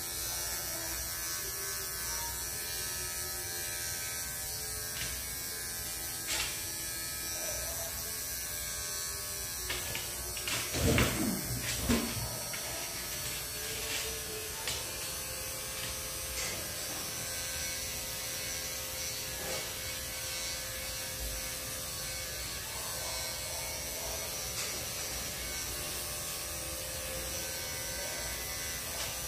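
Electric dog grooming clippers fitted with a number 10 blade running with a steady buzz as they clip a schnauzer's coat. About eleven seconds in, a short, louder voice-like sound rises and falls over the buzz.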